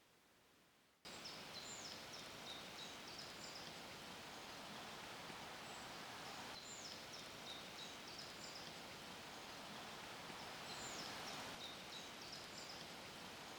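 Outdoor ambience: a steady rushing hiss with small birds chirping and whistling over it, cutting in suddenly about a second in.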